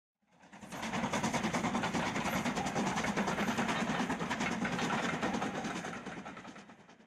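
Steam locomotive hauling a train at speed, its exhaust beating in a fast, even rhythm of about five beats a second. The sound fades in shortly after the start and fades out near the end.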